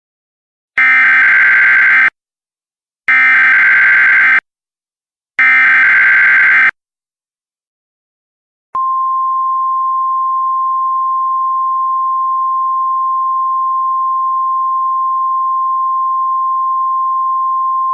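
Emergency Alert System header: three bursts of SAME digital data tones, each a little over a second long with about a second between them, then a single steady attention tone near 1 kHz that starts about nine seconds in and holds. It is the alert signal announcing a tornado warning.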